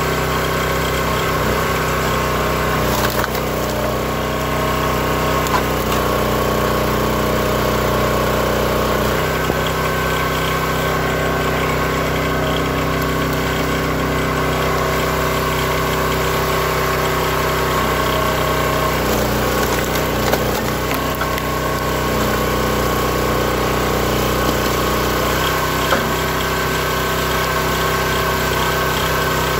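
Small gasoline engine of a hydraulic log splitter running steadily, its tone shifting a few times as logs are split, with a few short sharp knocks.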